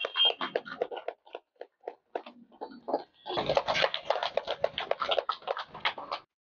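A small group clapping by hand, thinning out after about two seconds and then picking up louder again a little past halfway before cutting off abruptly.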